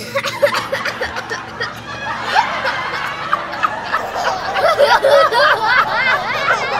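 Several people laughing and snickering together, many voices overlapping, the laughter growing fuller about two seconds in.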